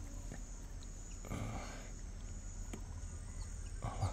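Steady insect chirring in tropical riverside surroundings, with a low rumble beneath. Two brief noisy swishes cut in, one about a second in and a shorter one near the end.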